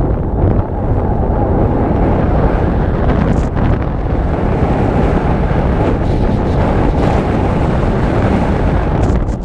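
Strong wind buffeting the microphone: a loud, steady rumbling roar with no pitched tone.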